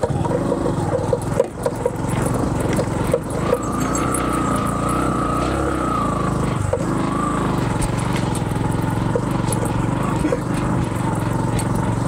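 Small motorcycle engine running steadily under way, with the bike being ridden over rough dirt and rock.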